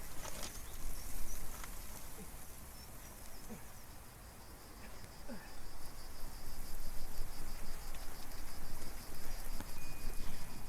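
An insect trilling in a steady, evenly pulsed high train that starts about four seconds in, over a constant low rumble.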